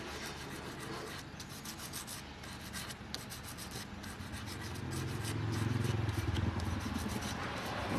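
Road-work noise: scraping and rasping with many small clicks, joined about five seconds in by a low rumble that grows louder.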